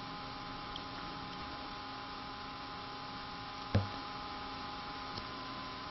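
Steady electrical hum with faint hiss, and a single short knock just under four seconds in.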